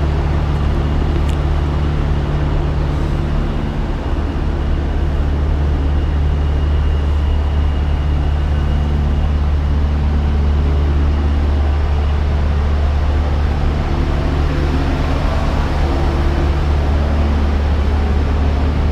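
Diesel truck engine idling steadily, a low even hum. A faint high whine sits over it for the first dozen seconds or so.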